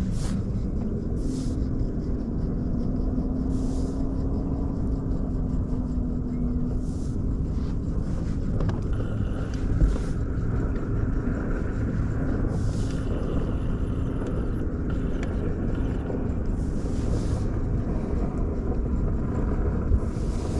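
A boat's motor running steadily: a low rumble with a steady hum that steps up slightly in pitch about a second in, with some wind on the microphone.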